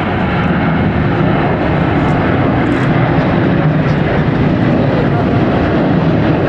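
Jet airliner's engines running nearby, a loud, steady noise that grows slightly louder.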